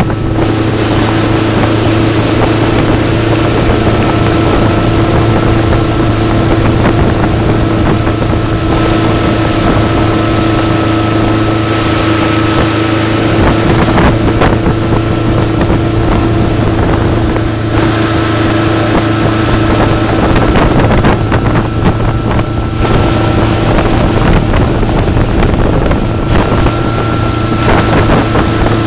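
Tow boat's engine running at a steady towing speed, an unchanging hum, with wind rushing over the microphone.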